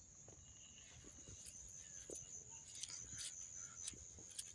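Faint, steady, high-pitched insect chorus, crickets by its sound, with scattered short clicks and rustles that grow more frequent in the second half.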